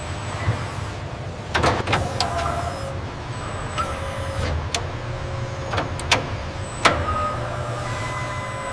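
Car-factory assembly-line machinery: a steady low hum with short motor whines, broken by about half a dozen sharp clicks and knocks.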